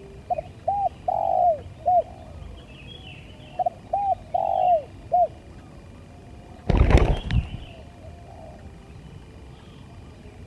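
Spotted dove cooing: two phrases of four or five arched coos, each phrase with one longer drawn-out note, the song type dove keepers call 'lambung kuk'. About two-thirds of the way in, a short loud rustle or thump is the loudest sound, and faint chirps of small birds run underneath.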